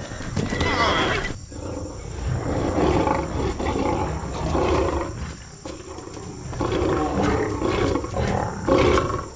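Big cats roaring: a run of rough roars, each a second or two long, with short gaps between them.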